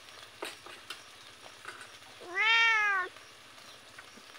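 A cat meows once, about two seconds in: a single drawn-out call of under a second that rises and then falls in pitch.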